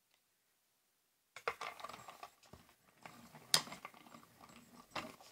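Handheld die-cutting machine rolled over a stack of clear acrylic cutting plates, with irregular plastic clattering and clicking; it starts about a second and a half in, with a sharp click about three and a half seconds in.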